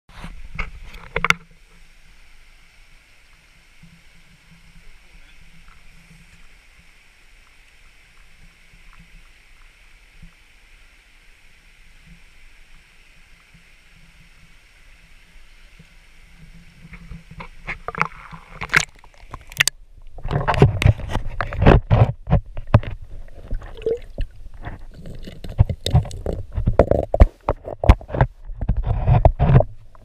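Shallow mountain stream running with a faint steady hiss, then loud irregular sloshing, gurgling and knocking as a GoPro camera is lowered through the surface and water washes over it. A single sharp knock sounds about a second in.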